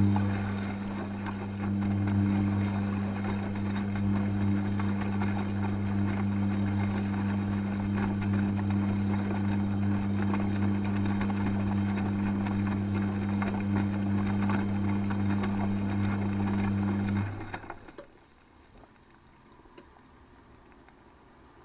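Beko WTG front-loading washing machine turning its drum during the heating stage of a 90 °C wash: a steady motor hum with wet laundry and water churning in the drum, picked up from inside the detergent drawer. The motor stops about 17 seconds in and the drum comes to rest, leaving a much quieter background.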